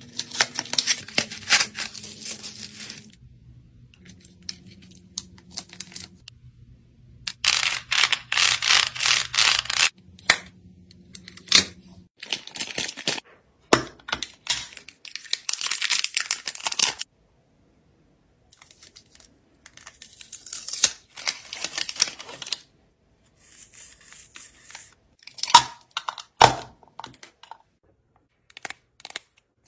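Plastic wrapping being peeled and torn off product packaging: several bursts of crinkling and tearing, each lasting a second or two. A few sharp clicks of hard plastic cases near the end.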